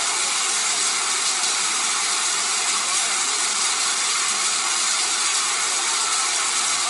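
Hail and heavy rain pelting down onto a pool and its surroundings in a dense, steady hiss of countless impacts.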